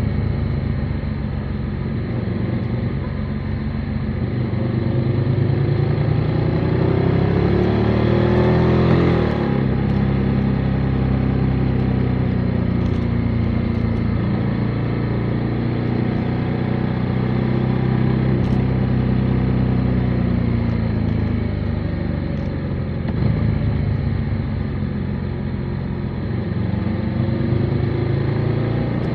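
Motorcycle engine running under way, heard from on the bike. Its pitch climbs for a few seconds and drops sharply about nine seconds in, then it runs steadily with gentle rises and falls in revs.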